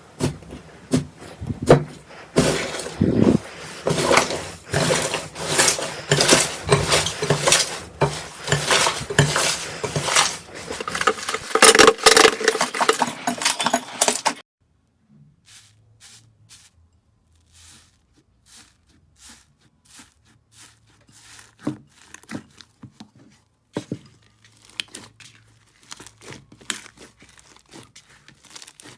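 Slime being squeezed and stretched by hand, giving dense crackling and popping clicks. About halfway through it cuts abruptly to sparse, quieter pops and clicks.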